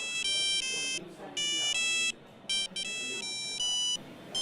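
Nokia 3210 monophonic ringtone playing a programmed tune, in three short phrases of beeping notes that step from pitch to pitch.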